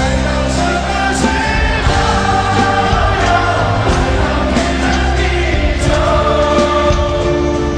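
A pop ballad with drums and layered choir-like harmony vocals. The full arrangement comes in louder right at the start.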